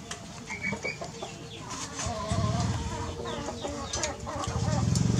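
Animal calls: a wavering, rapidly trilled clucking from about two seconds in, with scattered clicks. A low steady drone builds near the end.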